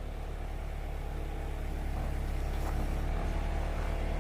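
Backhoe's diesel engine running steadily, growing gradually louder.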